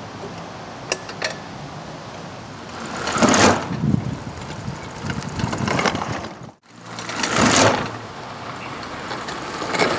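Pedal go-kart rolling over block paving, its rolling noise swelling and fading several times as it comes past, with two sharp clicks about a second in and a brief dropout just after halfway.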